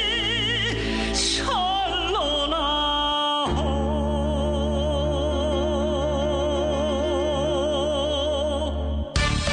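Music with long held notes and a strong wavering vibrato, sliding down in pitch about a second and a half in; just before the end it cuts abruptly to a busier, rhythmic tune.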